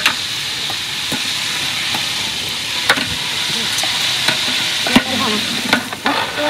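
Food frying with a steady sizzle, with a few sharp knocks of a utensil or pan about three and five seconds in.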